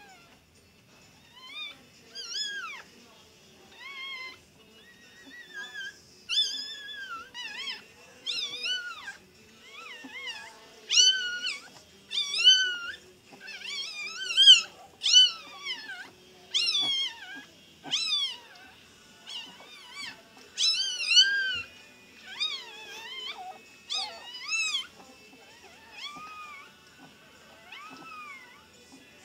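Newborn puppies squealing in a long string of short, high-pitched cries, each rising and falling in pitch. The cries come thickest and loudest through the middle and thin out near the end.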